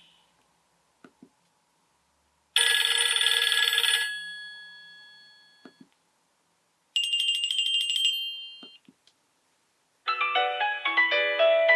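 Nokia 6234 mobile phone playing its built-in ringtones through its loudspeaker, one after another: a short bright chime that fades over about a second and a half, a higher chime a few seconds later, and near the end the start of a longer many-note tune. Faint clicks fall in the silent gaps between tones.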